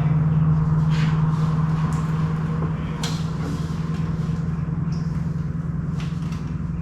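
A steady low machine hum, with a few light knocks of metal tools about two seconds apart.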